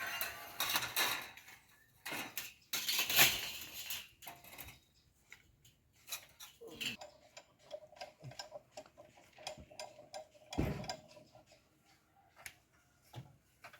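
Scattered metallic clicks, clinks and knocks from handling metal parts or tools, with a few louder scraping bursts in the first few seconds and a single thump later on; the bandsaw is not running.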